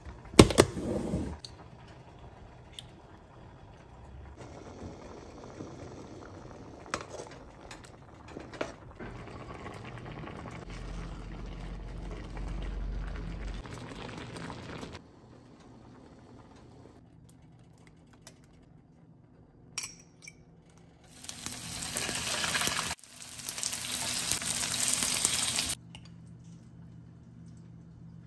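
A few plastic clacks as a tub lid is handled and closed, then a pot of rice bubbling steadily as it simmers on the stove. Later come two loud stretches of steady hissing, the loudest sound here.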